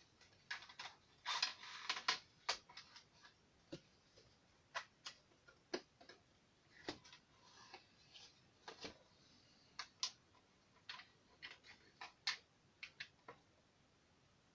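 Irregular light clicks and taps of small metal screws and parts being handled, with brief rustling of the packaging in the first couple of seconds.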